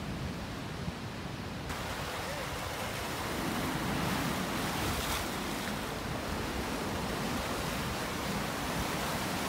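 Choppy sea waves washing onto rocks along a seawall, with wind rushing across the microphone. About two seconds in, the sound abruptly turns brighter and hissier.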